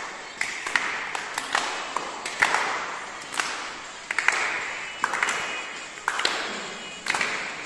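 A small group clapping hands, loosely in time, with sharp claps about once or twice a second ringing on in a large echoing hall.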